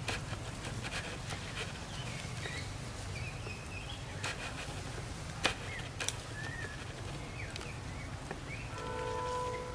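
Outdoor ambience under a steady low rumble, with scattered sharp clicks and snaps and a few short, high, sliding chirps. Near the end a steady, horn-like tone of several pitches sounds for about a second.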